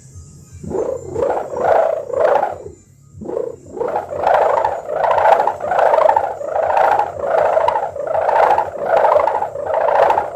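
3.5-metre sendaren kite hummer of plastic film and gift ribbon, vibrating in a deep snoring buzz. The buzz swells and fades about twice a second and breaks off briefly about three seconds in.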